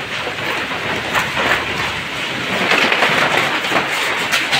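Storm wind rushing and gusting, a loud, unbroken rushing noise that swells and eases.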